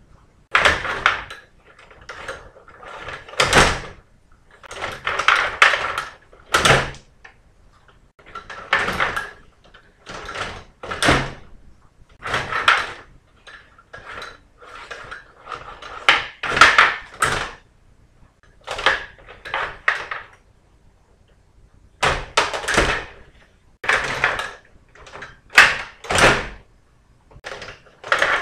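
Stiga table hockey game in play: the metal control rods are pushed, pulled and twisted, and the plastic players and puck clatter against the board. The clatter comes in short rattling bursts every second or two.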